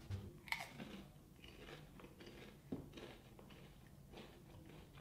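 A bite into an original Pringles potato chip: a sharp crunch about half a second in, then faint crunching as it is chewed.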